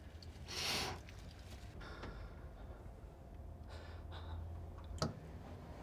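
A person's short, audible breath about half a second in, then a quiet room with a low steady hum and a small click about five seconds in.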